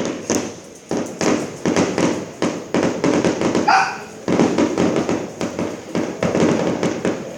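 Fireworks going off in a dense, continuous barrage of rapid crackling bangs, with a brief high whine a little before the middle.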